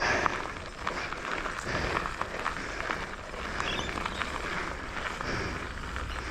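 Crunching of dirt and gravel with many small clicks and rattles as a mountain bike moves along a trail, with wind rumbling on the microphone, a little stronger near the end.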